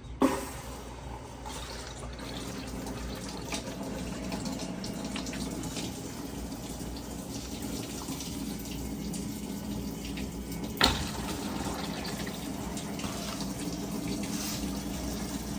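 Water pouring into a Maytag top-load washer's drum through its water inlet valve during a diagnostic fill test, a steady rush with a low hum. A sharp click comes right at the start and another about eleven seconds in.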